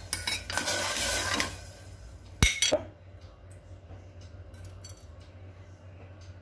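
Steel spatula stirring and scraping food in a pressure cooker, with small clinks, for about the first second and a half; then two sharp metal clanks about two and a half seconds in, after which only a faint low hum remains.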